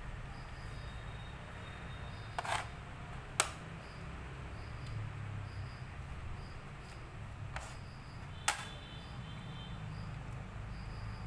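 Xiangqi (Chinese chess) pieces being moved and set down on the board: four sharp clacks spread over the stretch, the loudest about three and a half seconds in, over a steady low hum.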